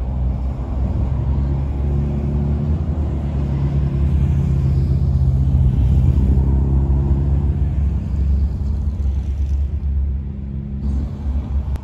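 Low engine rumble of a classic car driving past, building to its loudest about halfway through and easing off near the end.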